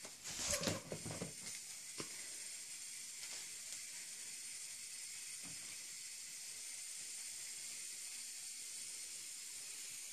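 Quiet room with the steady high hiss of the recording's own background noise, with a few brief rustles and a faint click in the first two seconds.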